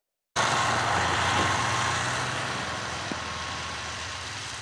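Snowmobile engine running as it tows a camper sled along a snowy trail. It cuts in abruptly and grows steadily fainter as the machine pulls away.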